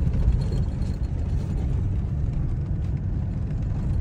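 Steady low rumble of a vehicle driving over a grassy field track, heard from inside the cab.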